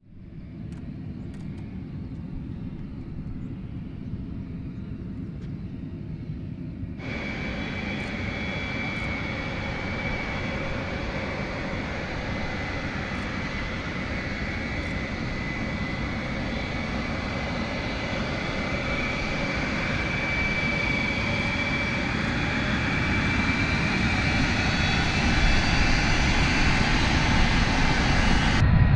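Boeing E-3 Sentry's four TF33 turbofan engines running as it taxis: a low rumble at first, then from about seven seconds in a steady high whine over the rumble, growing gradually louder as the aircraft comes closer.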